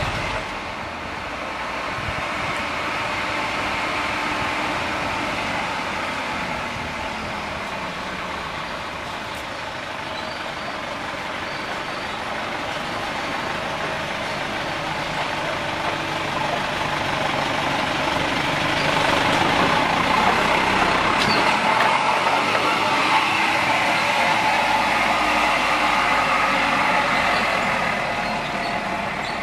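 Diesel truck engine running as the truck drives slowly past, louder in the second half.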